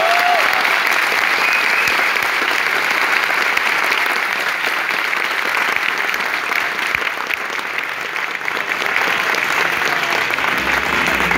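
Theatre audience and cast applauding: a dense, steady clatter of many hands clapping.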